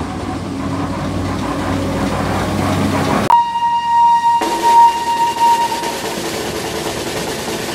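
The Botchan Ressha locomotive's whistle sounds one steady, high-pitched blast about three seconds in, strong for about a second and then fading over the next two. Before it there is a steady rumble of street and engine noise.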